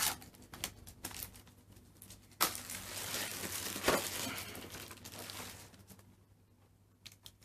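Plastic packaging crinkling and rustling as it is handled, with sharper crackles about two and a half and four seconds in; the rustling stops about six seconds in.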